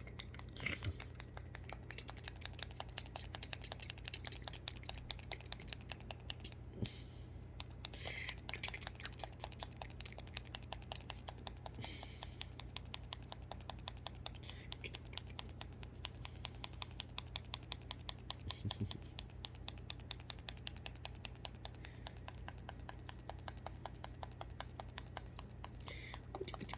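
Rapid, even clicking, several clicks a second, over a low steady hum, with a few louder knocks along the way.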